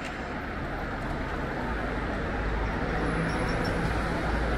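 City road traffic, with a motor vehicle passing close and the noise growing louder through the clip.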